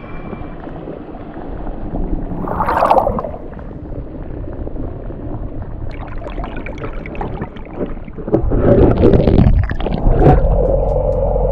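Muffled gurgling and sloshing of water heard through a camera held under the surface, with a brief bright splash about three seconds in. It grows louder and rougher near the end as the camera breaks out of the water, and background music with steady held notes comes in just after.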